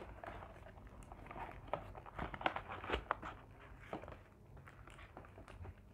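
Paperboard fast-food box being opened by hand: soft scraping and rustling with scattered light clicks of the card flaps, plus crinkling of the paper wrapper around the fried chicken.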